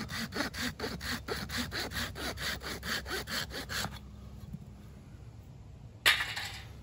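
Small pruning saw cutting through a dry horseweed stalk in quick, even strokes, about five a second, shortening the spindle; the sawing stops about four seconds in. A short, loud clatter follows about two seconds later.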